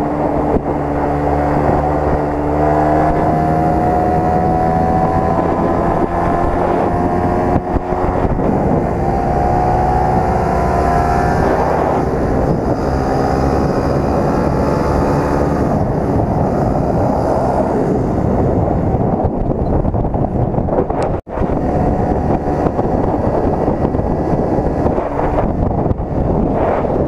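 Motorcycle engine heard from the rider's seat, pulling in gear with its note rising slowly twice in the first twelve seconds, then holding steady at cruising speed. Wind rushes over the microphone throughout, taking over in the second half, with one brief dropout about twenty seconds in.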